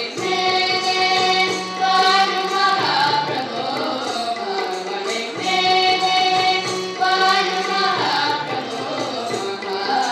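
A group of young voices singing a devotional bhajan together in long held phrases, over a steady drone.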